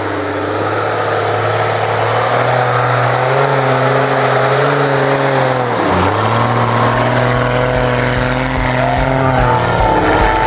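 Lifted Jeep Cherokee's engine running hard as it climbs through snow: a steady pitched drone whose revs dip sharply and pick up again about six seconds in.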